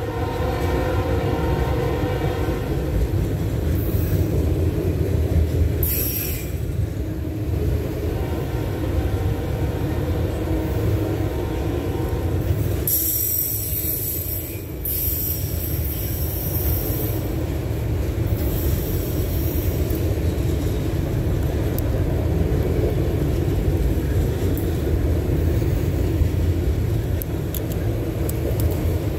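Freight train of autorack cars rolling past: a steady low rumble and rattle of steel wheels on the rails. A high-pitched wheel squeal fades out in the first couple of seconds, and short bursts of high screech come and go later.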